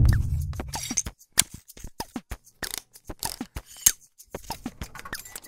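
An irregular run of short clicks and ticks, several with a brief falling chirp: sound effects for animated title text popping on letter by letter. A deep low boom dies away during the first second.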